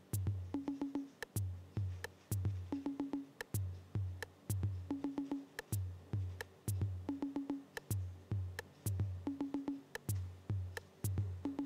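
Background lo-fi music: a looping drum-machine beat with deep kick-drum thumps, crisp clicking hits and a short synth note that recurs about every two seconds.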